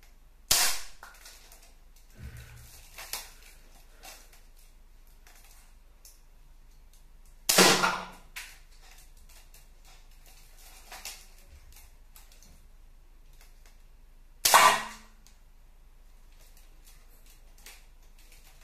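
Home-built Lego Nerf rifle firing three shots, each a sharp snap about seven seconds apart: near the start, about halfway through and about three quarters of the way in. Quieter clicks and knocks come between the shots.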